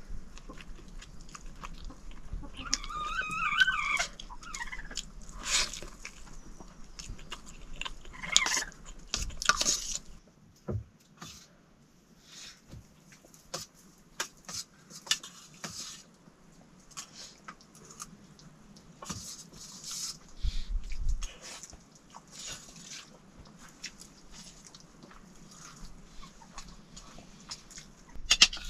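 People eating a meal: chewing, with scattered small clicks and knocks of plates and utensils. A short wavering animal call comes about three seconds in.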